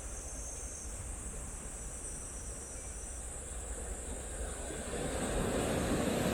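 Wind and sea waves at the shore, with wind rumbling on the microphone and a wave surging up about five seconds in.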